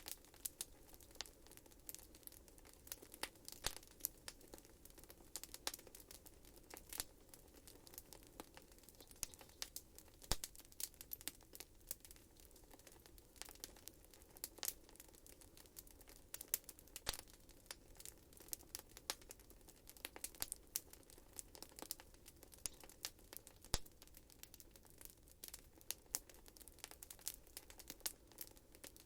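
Wood fire in a fireplace crackling: irregular sharp pops and snaps, several a second, over a faint low hum.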